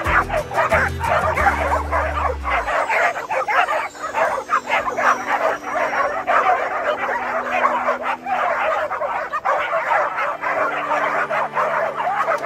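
A pack of dogs barking and yipping all at once in a dense, continuous clamour, over background music.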